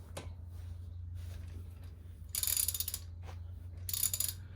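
Ratchet wrench clicking in two short bursts as a lug nut socket is worked on a car's lug nut, with a steady low hum underneath.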